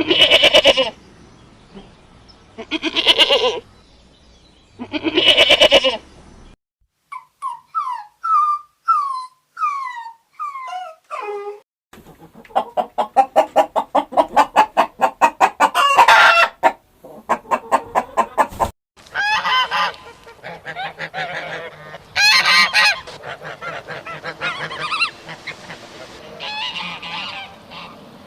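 Farm animals calling in turn: three loud goat-like bleats in the first six seconds, then a run of short falling peeps from young birds, then poultry honking and cackling in quick runs of calls for the rest.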